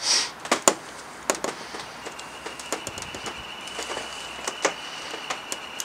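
A 2018 Honda Gold Wing's seat being tugged up and loose by gloved hands: scattered sharp clicks and small plastic knocks, with a short rustle at the start.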